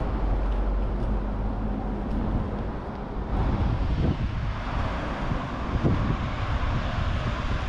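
Outdoor city ambience: a steady rumble of traffic with wind buffeting the microphone.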